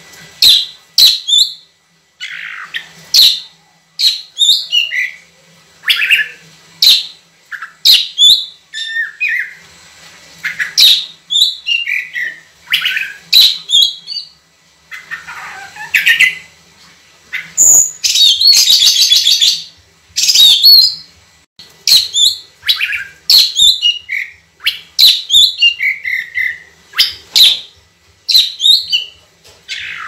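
Oriental magpie-robin (kacer) singing loudly: a rapid run of short, sharp whistled notes and falling whistles separated by brief pauses, with a longer fast buzzy trill about eighteen seconds in.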